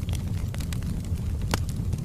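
Wood fire burning in a fireplace: a steady low rumble of flames with scattered sharp crackles and pops from the burning logs, the loudest pop about one and a half seconds in.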